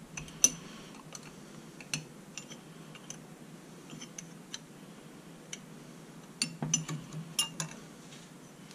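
Steel combination wrench clicking and clinking against the bolt heads and housing of a Sanden 709 A/C compressor as its cover bolts are snugged down by hand. Scattered sharp ticks, the loudest about half a second in, and a quick run of clinks about six and a half seconds in.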